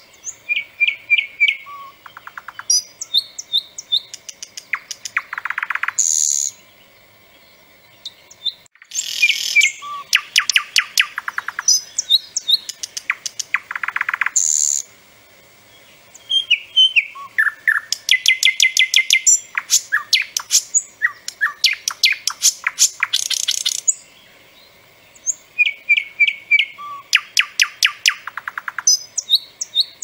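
A nightingale singing: loud phrases of rapidly repeated notes and clear whistles, each phrase a few seconds long, with short pauses between them.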